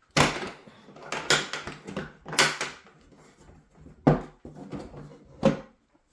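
A hard plastic tool case being handled and opened: a series of sharp clicks and knocks, about six of them spread out, with rustling in between.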